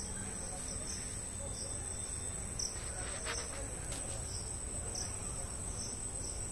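Insects trilling in a steady high-pitched drone, with short chirps repeating about every half second to second.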